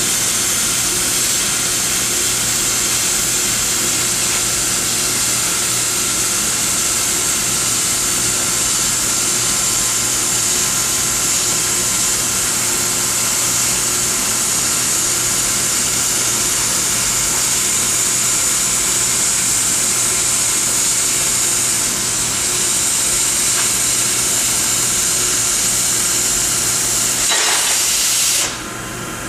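Oxy-acetylene cutting torch on a Victor track cutter giving a loud, steady hiss as its oxygen jet cuts through quarter-inch steel plate. The hiss drops sharply near the end, as the torch runs off the end of the plate.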